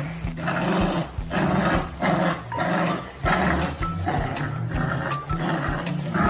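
A dog growling in short repeated bursts, about two a second.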